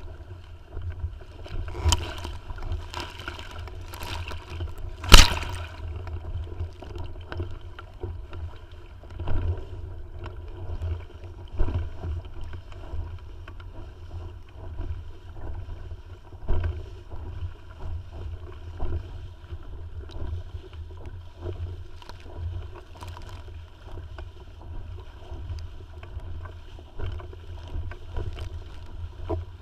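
Water gurgling and slapping against the hull of a Tiwal 3 inflatable sailing dinghy under way, over a steady low rumble. Scattered sharp knocks come through; the loudest, a sharp crack, is about five seconds in.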